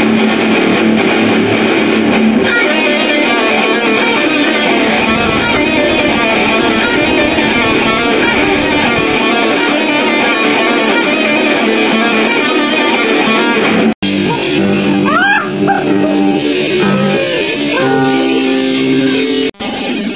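Two electric guitars played together in a loud, dense passage. About fourteen seconds in it cuts off abruptly, and sparser held notes follow, with one note sliding upward.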